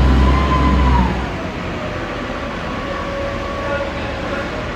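Heavy lifting equipment running, its engine and hydraulic whine easing off about a second in, after which the whine settles at a lower steady pitch.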